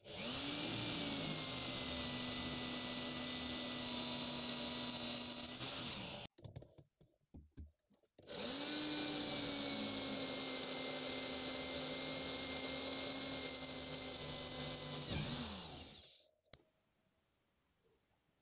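Electric drill boring into a metal plate in two runs: it spins up and drills steadily for about six seconds, stops, then runs again for about eight seconds before winding down. A few light knocks come in the gap between the runs.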